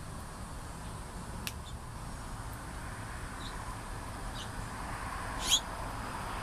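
A few short, high bird chirps spaced a second or so apart, the last and loudest about five and a half seconds in, over a steady background rumble that grows louder near the end.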